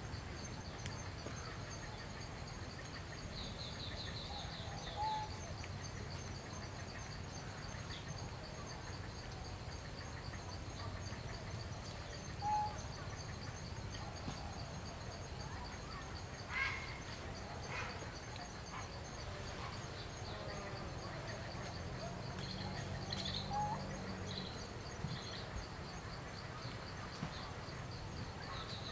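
Forest ambience: a steady, finely pulsing high insect drone, with a few short high chirps scattered through it and two sharp clicks a little past halfway.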